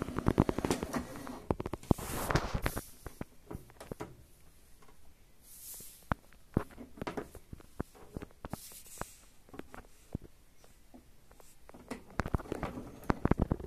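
Irregular clicks and taps from hands handling a miniature model bus and opening its small side doors, with a few brief rustles; the clicks come thickest in the first couple of seconds and again near the end.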